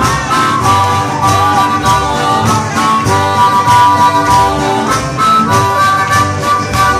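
Live band playing an instrumental passage: a harmonica plays held, bending notes over a steady drum beat and bass.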